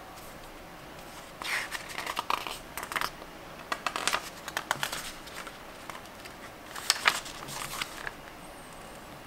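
Paper pages of a softcover book being turned by hand, rustling and flapping in three short bursts of flips.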